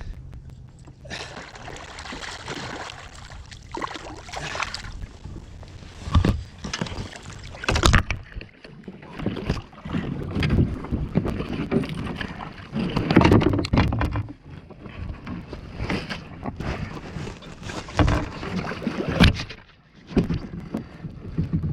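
Water sloshing and splashing against a kayak, with several sharp knocks on the hull, as a hooked smoothhound is brought alongside and landed.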